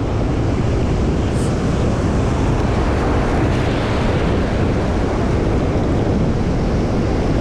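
Surf washing on the shore with steady wind buffeting the microphone.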